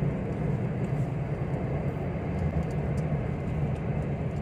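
Car driving at road speed, heard inside the cabin: steady engine and tyre noise, mostly low-pitched.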